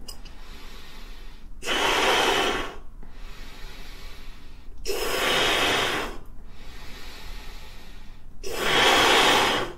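A person blowing into an origami paper balloon (water bomb) to puff it up: three long breathy blows of about a second each, a few seconds apart.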